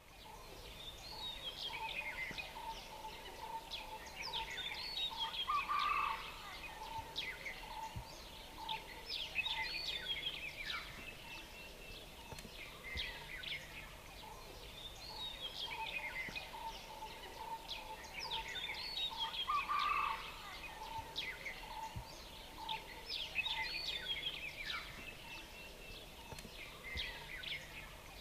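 A chorus of birds calling and chirping, with quick high chirps and trills over a steady run of short, evenly spaced mid-pitched pips. The whole bed repeats about every 14 seconds, like a looped nature-ambience track.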